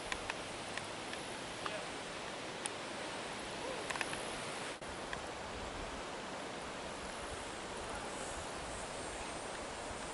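Steady outdoor background hiss, with a few faint short clicks and ticks scattered through it.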